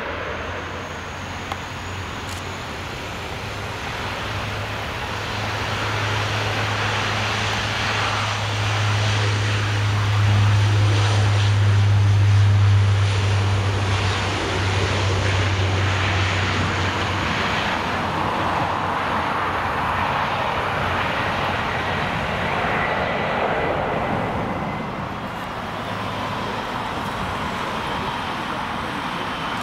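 Luxair De Havilland Dash 8-400 turboprop taxiing past, its propellers giving a steady low drone that swells to its loudest about halfway through as the aircraft comes close. The drone then fades, leaving a broader hum of aircraft engine noise.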